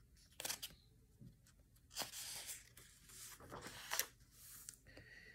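Faint papery swishes and rustles as a page of a picture book is turned and smoothed down.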